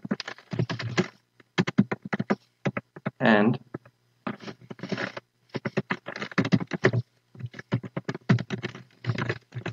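Typing on a computer keyboard: runs of quick, irregular keystrokes with short pauses between them.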